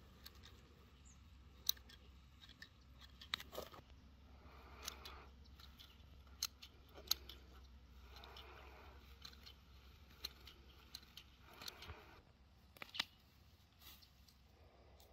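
Hand pruning shears snipping through herb stems: sharp clicks at uneven intervals, with soft rustling of the plants being gathered by hand.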